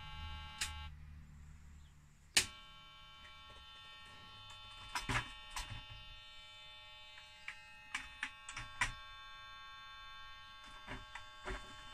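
BBC Master Compact beeping continuously, a steady buzzy tone: the 'continuous beep of death' fault, with the operating system ROM moved to another socket. The tone breaks off about a second in and comes back with a sharp click, then holds under light clicks and knocks from handling the keyboard and case.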